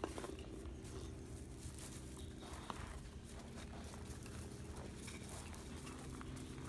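Puppies' paws scuffling and patting on loose gravel, with scattered small clicks, over a steady low motor drone in the background.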